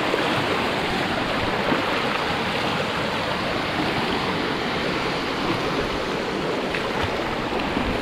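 Steady rushing of a monsoon stream flowing fast over rocks.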